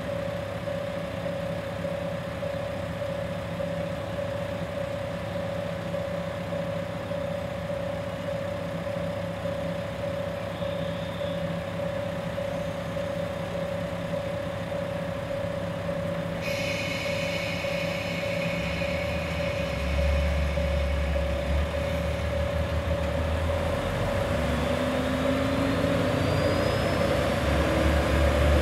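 Two-car KiHa 40 / KiHa 47 diesel railcar idling steadily at the platform, with a steady whine over the engine hum. About two-thirds of the way through, the diesel engines open up with a heavy low rumble and the train starts pulling away, the engine note rising and growing louder toward the end.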